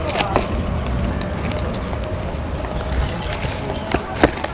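Steady low rumble of road traffic, with a few short, sharp crinkles and taps of a cardboard parcel and its paper being handled. The loudest tap comes about four seconds in.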